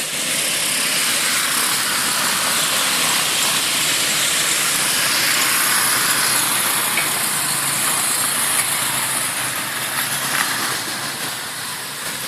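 A steady, loud hiss, with an ATV engine running faintly underneath; the level eases a little near the end.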